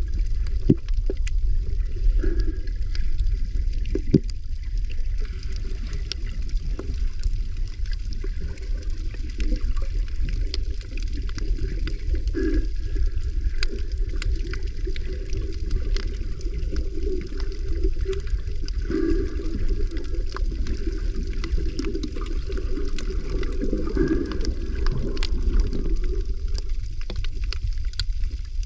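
Moving water heard through an underwater camera: a steady low rumble with gurgling and scattered sharp clicks.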